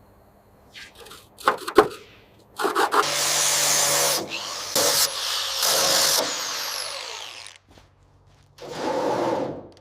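A few short knocks, then a handheld power tool running in long bursts, with a break just before the end.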